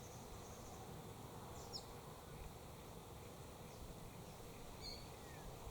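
Faint outdoor ambience with a low rumble of wind noise, and a few short, faint bird chirps about two seconds in and near the end.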